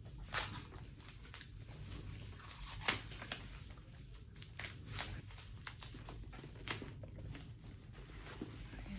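Irregular rustling and crinkling of packaging being handled and pulled off a new handbag, with sharper crackles about half a second and three seconds in.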